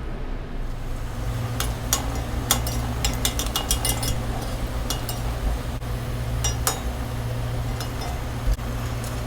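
A metal utensil clinking and tapping against a pan again and again, in irregular sharp knocks, while battered fish deep-fries in oil. A steady low hum runs underneath.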